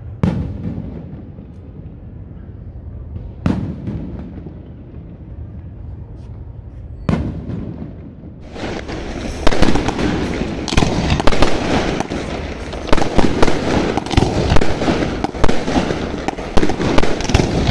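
Aerial fireworks display: three single shell bursts a few seconds apart, each a sharp bang. Then, from about eight seconds in, a dense barrage of rapid bangs and crackling.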